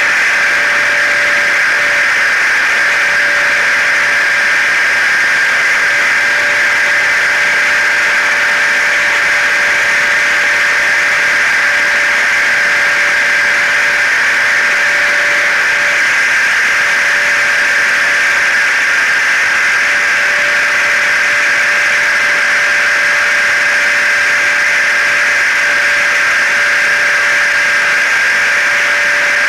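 Layered white-noise drone of a hair dryer, a car and a vacuum cleaner running together: a loud, unchanging rush of air with steady whining tones on top.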